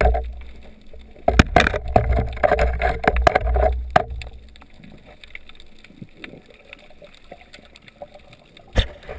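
Water noise recorded underwater: a low rumble of water moving, with a dense run of knocks and rushing for a couple of seconds, then quieter, and one sharp knock near the end.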